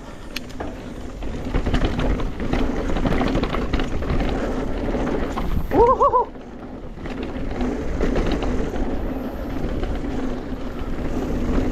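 A mountain bike being ridden on a trail: steady rumble and wind on the microphone, with the bike clattering and knocking over bumps. A short shout comes about six seconds in.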